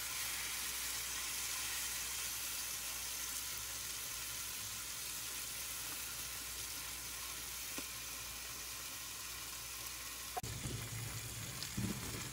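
Beef steaks and chicken sausages sizzling steadily in their own fat and a little olive oil on a hot nonstick griddle pan. A brief light knock comes about ten seconds in.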